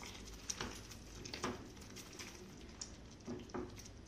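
Spatula stirring thick paneer gravy in a non-stick pan, mixing in a little added water: a few faint scrapes and soft taps against the pan.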